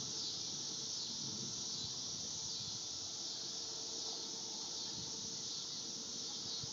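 Summer insects droning steadily in a high pitch, with a faint steady hum underneath.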